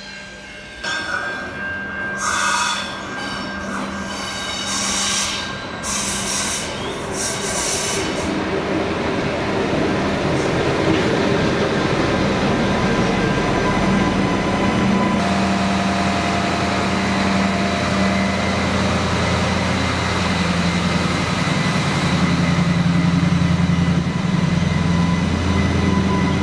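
Adelaide Metro 3000-class hybrid-diesel railcar set running in along a station platform. High wheel squeals come and go over the first several seconds, then a steady low engine and traction hum takes over and grows louder as the cars draw close.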